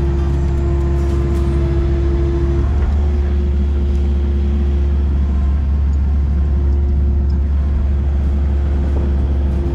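Excavator's diesel engine running at a steady drone, with a higher steady hum that fades about two and a half seconds in.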